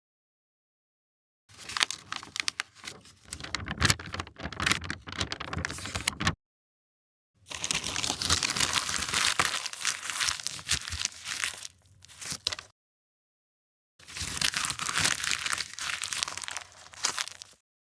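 Sheet of paper being crumpled by hand, a dense crackling and crinkling. Three separate takes of about four to five seconds each, with silent gaps between them.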